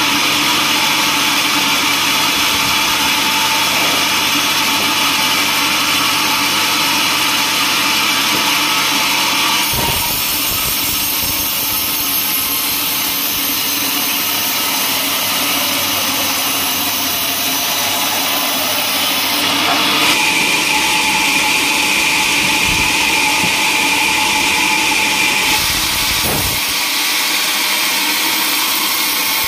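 Band sawmill running, its blade cutting through a teak log: a loud, steady machine noise. Its tone shifts abruptly three times.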